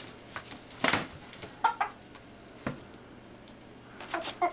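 Rooster scuffling with a plush toy chicken on carpet: a brief rustling scuffle about a second in and a sharp knock later. It gives a couple of short clucks in the middle and a few more near the end.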